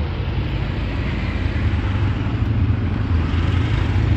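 Small engines of three-wheeled auto-rickshaws running on the street, with the rumble growing a little louder near the end as two of them drive past close by.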